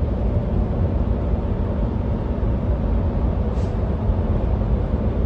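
Semi-truck cruising at highway speed, heard from inside the cab: a steady low engine drone and road rumble. A brief faint hiss comes about three and a half seconds in.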